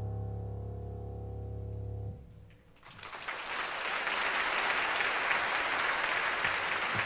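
A low sustained chord from a keyboard instrument holds steady, then stops about two seconds in; after a brief hush an audience breaks into applause that carries on.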